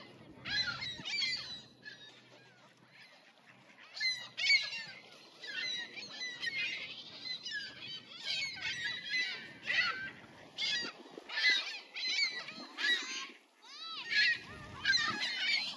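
A flock of gulls and Canada geese calling, many short, high, overlapping calls in quick succession.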